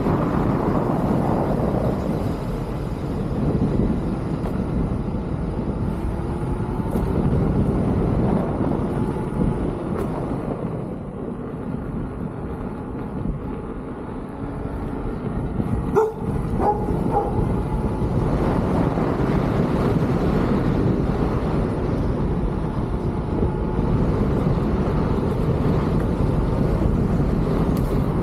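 Wind rushing over the microphone and road rumble while riding a Leaperkim Lynx electric unicycle, easing off for a few seconds in the middle. A single short sharp sound stands out about sixteen seconds in.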